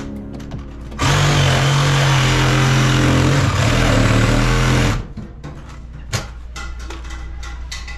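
A power tool running steadily for about four seconds, starting about a second in and cutting off suddenly, followed by scattered knocks and clatter.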